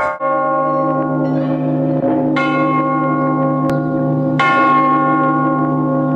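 Church bells ringing: a long-sounding deep hum with overtones, with fresh strikes about two and four and a half seconds in that renew the higher tones.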